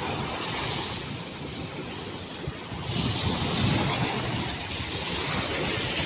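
Small waves breaking and washing up the shore, with wind buffeting the microphone. The surf hiss swells again about three seconds in.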